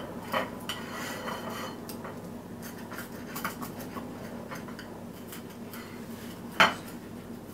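Pizza cutter wheel rolling through a crisp-fried green onion pancake on a plate, with light scraping and small clicks of metal on the plate; one sharper clink about six and a half seconds in.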